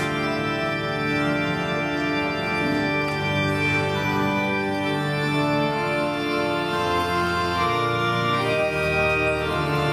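Electronic keyboard on an organ sound playing slow, sustained chords.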